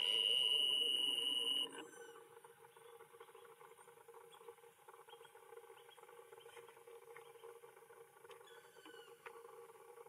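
Superzoom camera's lens zoom motor whirring, a steady high whine that cuts off abruptly after about a second and a half as the lens zooms in. Afterwards only a faint background with scattered light ticks.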